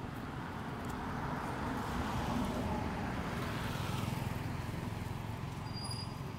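Passing motor traffic: a vehicle's steady noise swells to a peak near the middle and fades away.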